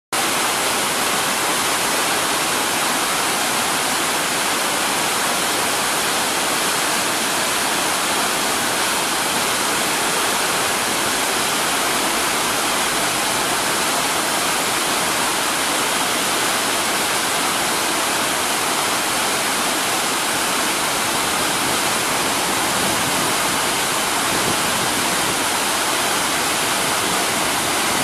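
Whitewater pouring through a dam's sluiceways and churning over rocks below: a steady, unbroken rush of falling water at an even level throughout.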